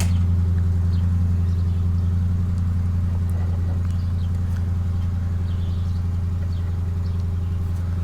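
Steady low machine hum that holds level throughout, with a few faint small taps over it.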